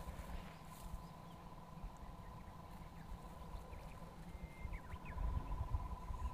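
Faint outdoor ambience: low wind rumble on the microphone, a thin steady high tone that turns pulsing near the end, and a few short bird chirps a little past the middle.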